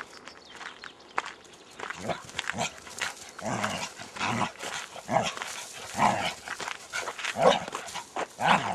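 Border collies barking in play: a run of short barks from about two seconds in, roughly one a second and louder toward the end.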